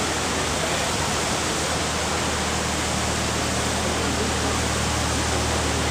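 Water rushing steadily through a canal lock's overflow weir, a constant loud hiss. A low steady hum comes in about two seconds in.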